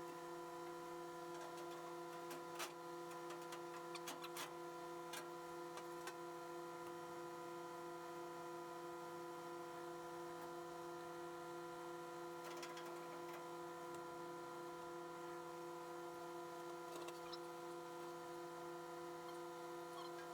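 Faint steady hum made of several held tones, with scattered light ticks and clicks now and then.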